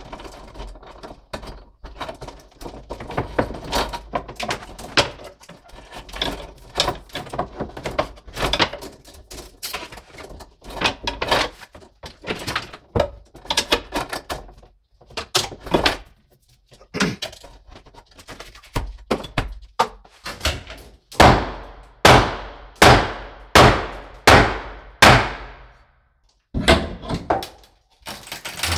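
Knocking, clattering and rustling as old electrical cables are pulled from the wall framing and the wooden cross member is worked loose, then a run of about six hard hammer strikes on the wood, evenly spaced under a second apart, a little past two-thirds of the way through.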